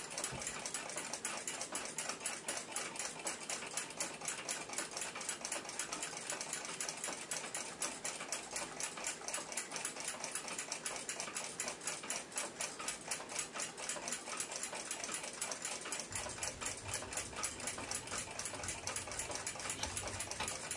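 Mechanical clock ticking, a fast and even train of light ticks, with a faint low rumble of the case being handled in the last few seconds.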